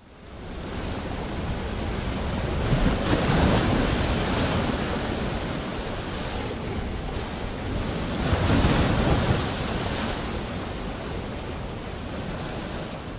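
Ocean surf: a steady wash of breaking waves that fades in, swells louder twice, about three seconds in and again about eight seconds in, and fades out at the end.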